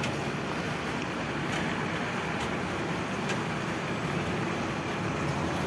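Steady road traffic noise: vehicle engines and movement on the road, with no single event standing out.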